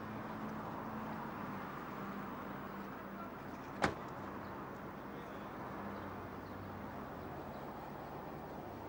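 Steady street traffic noise, with one sharp knock about four seconds in.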